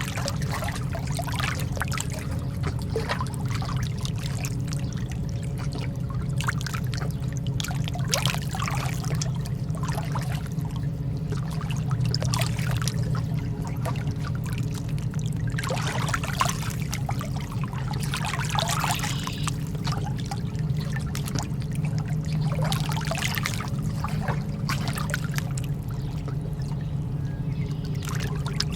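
Calm sea water lapping and splashing gently, in soft swells that come every three to four seconds. A steady low hum runs underneath.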